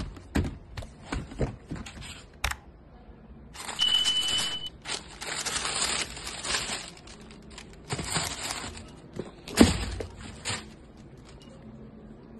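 Tissue paper crinkling and rustling as sneakers are unwrapped from their shoe box, with scattered handling clicks at first and denser rustling from about three and a half seconds in. A short high tone sounds about four seconds in, and a thump near ten seconds is the loudest sound.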